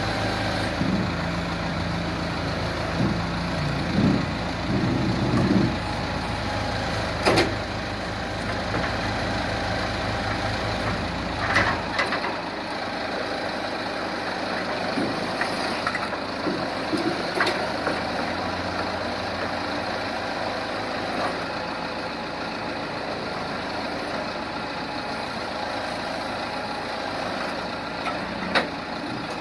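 Ingersoll-Rand telehandler's engine running, with a heavy low rumble that drops back about twelve seconds in. A few sharp knocks are heard along the way.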